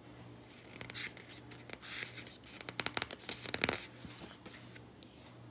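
A page of a picture book being turned by hand: paper rustling and scraping, with a cluster of sharp crinkles in the middle as the page flips over.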